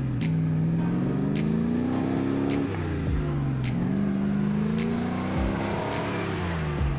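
Heavy truck engine revving hard under load, its pitch rising and falling several times, with a sharp tick about once a second.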